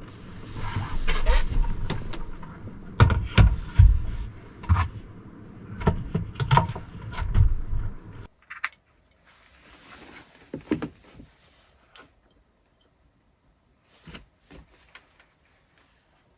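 Knocks, clicks and rustling of things being handled inside a small camper cabin, busy for about the first eight seconds, then only a few scattered clicks.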